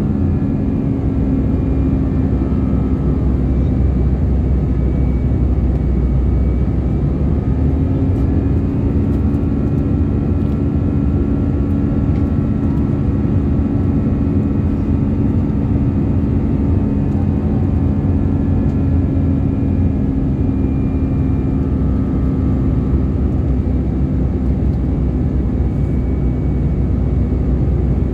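Steady cabin drone of an Airbus A319 in flight: its CFM56 turbofan engines and the rush of air over the fuselage, with a low, even hum that holds steady throughout.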